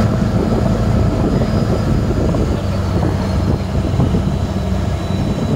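Motorboat engine running steadily with a low hum, under a constant rushing noise, as the boat tows a parasail.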